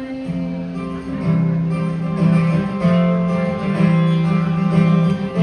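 Music led by guitar, with strummed and sustained notes over a steady low bass line.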